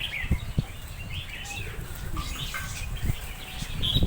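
Many small caged birds chirping and twittering in short, overlapping calls, with a few dull knocks.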